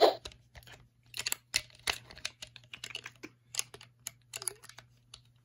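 Irregular plastic clicks and taps as a Dino Fury key is fumbled into a Dino Fury Morpher toy. The key is in the wrong way round, so no sound effect plays.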